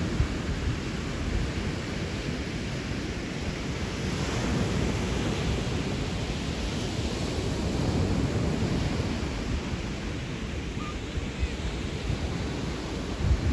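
Steady rushing noise with a low, fluttering rumble and no clear tones.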